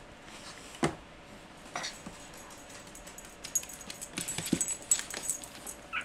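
A small terrier moving about close by: a sharp snort about a second in and a shorter one near two seconds, then a run of quick, high jingling and clicking.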